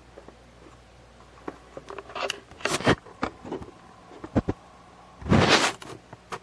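Irregular clicks, scrapes and rustling handling noises, with two louder rustling bursts about two and a half and five and a half seconds in.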